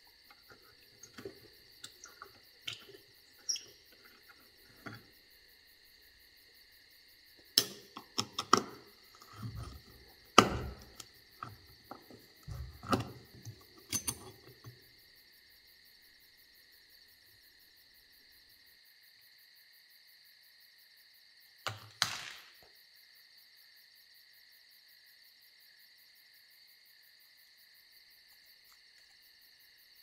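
A screwdriver working rusty screws out of corroded brass hinges on a wooden ice box: scattered clicks, scrapes and knocks of metal on metal and wood, busiest in the first half, then one more knock a little past the middle. A steady high tone runs underneath.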